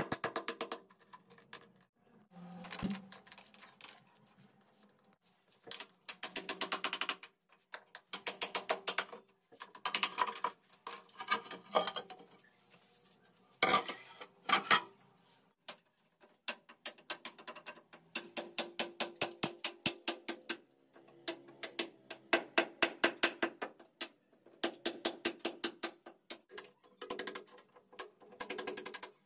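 Hammer striking a cold chisel, chipping out brick and mortar from under a granite countertop's oven cutout: bursts of rapid metallic taps with short pauses between them.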